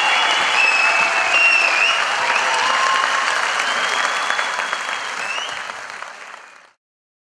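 Large theatre audience applauding. The clapping fades away over the last couple of seconds and cuts off shortly before the end.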